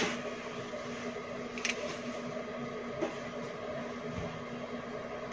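Steady low hum of a fan with one faint steady tone in it, and a few faint clicks, one about a second and a half in and one about three seconds in.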